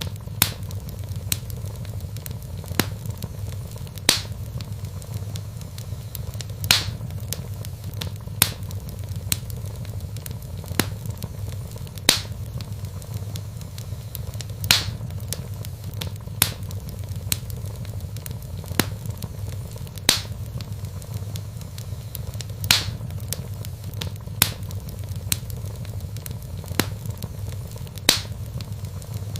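Wood fire burning in a fireplace: sharp crackles and pops every second or two over a steady low rumble of the flames.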